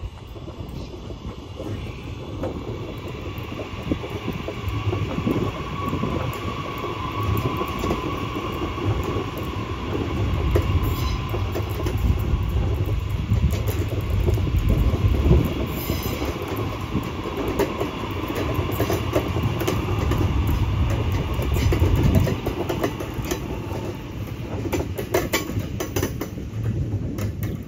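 An electric suburban train, a High Capacity Metro Train, running past: a steady rumble of wheels on rail with scattered clicks and a faint steady whine. It grows louder through the middle and eases near the end.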